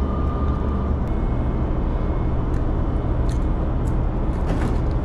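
A steady low rumble with a few light clicks near the end.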